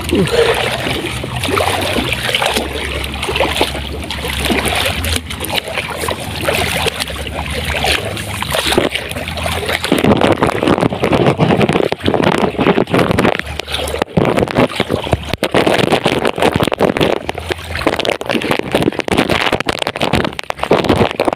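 Someone wading through deep floodwater, the water sloshing and swishing around the legs with each step.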